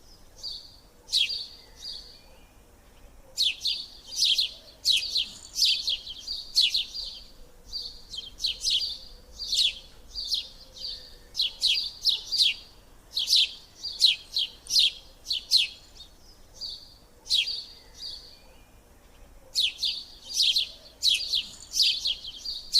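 Canaries chirping: quick downward-sweeping chirps in clusters of several, with short pauses between the clusters.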